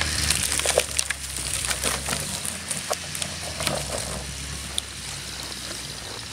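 UAZ-452 van engine running under load as it tows a felled pine log on a cable through snow, its low hum fading as the van pulls away. Crunching and cracking sounds come from the snow and branches, thickest in the first few seconds.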